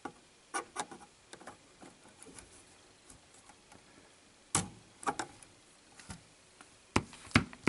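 Scattered small clicks and taps of hands and parts being handled inside an opened cassette deck as a part is fitted back on, with a few sharper clicks about four and a half seconds in and again near the end.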